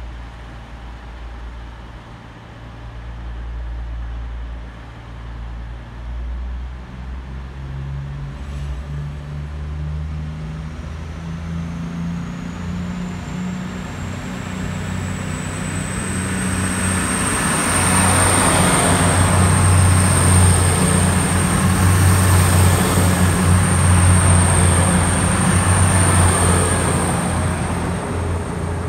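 Class 222 Meridian diesel multiple unit approaching and passing, its underfloor diesel engines growing steadily louder as it nears and loudest as it goes by. Their low note rises in pitch, and a thin high whine climbs and then holds steady.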